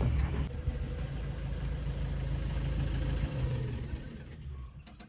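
Safari jeep engine running at low revs, a steady low rumble that fades away over the last couple of seconds.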